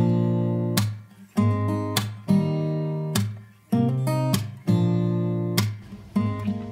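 Background music: an acoustic guitar strumming chords, each strum ringing and decaying before the next, dying away near the end.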